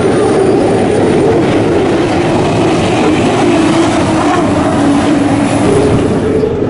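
Unlimited hydroplanes with Chinook-helicopter turbine engines running at racing speed: a loud, steady jet-like roar over rushing spray, its droning pitch sinking a little midway and rising again near the end.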